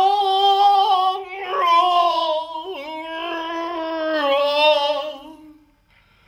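Wordless female voice holding long, slightly wavering tones, stepping down to a lower note about three seconds in and sliding slowly lower before fading out near the end.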